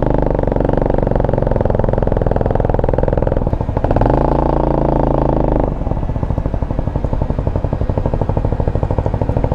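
Single-cylinder 250cc four-stroke engine of an X22GT automatic motorcycle, a copy of the Honda Helix 250 design, running a little above idle with a brief rise in revs just before four seconds in. About six seconds in it drops back to a steady, pulsing idle.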